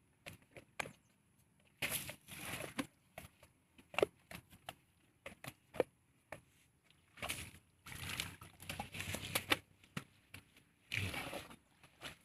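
Elephant calf scraping and scuffing at a wet mud bank with its feet and trunk: irregular bursts of scraping and soft sloshing, a few lasting about a second, with sharp clicks in between.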